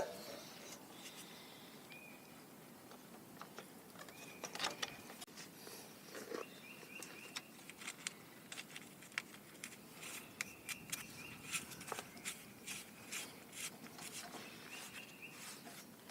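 Faint, scattered clicks and taps of hands handling small metal parts and tools on the generator, with short, high chirps coming and going in the background, like a bird.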